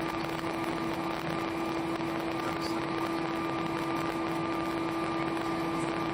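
Steady cabin hum of an Airbus A319 taxiing after landing: engine and air-conditioning noise with a steady low tone running through it.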